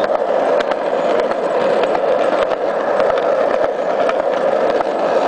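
Skateboard wheels rolling fast on a concrete path with a steady rumble, broken by occasional sharp clicks.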